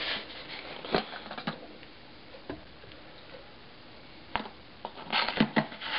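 A plastic water bottle being picked up and handled: a few sharp, light clicks and taps spaced about a second apart, then a quicker run of clicks near the end.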